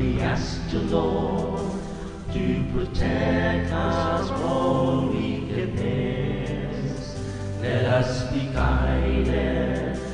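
Background music: a slow religious song with voices singing over a steady instrumental backing.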